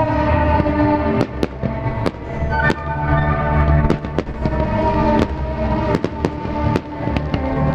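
Aerial fireworks shells bursting and crackling in irregular sharp bangs, several a second at times, over music with sustained notes.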